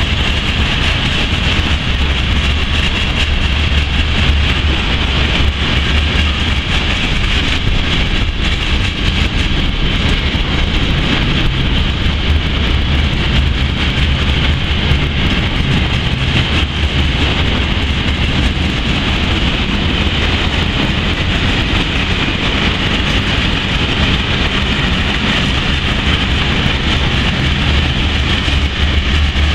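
Long container freight train hauled by an electric locomotive rolling past: a steady, continuous rumble of wheels on rail with no breaks or distinct clanks.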